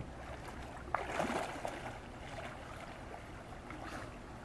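Water splashing and sloshing as a bottlenose dolphin swims and breaks the surface, with the loudest splash about a second in and smaller splashes later.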